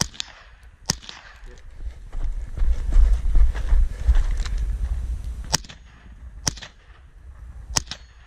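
Ruger SR-1022 semi-automatic .22 rifle firing: two sharp shots about a second apart, each with a short echo, then after a pause four more spaced shots in the last three seconds. In the pause there is a louder stretch of low rumbling noise on the microphone.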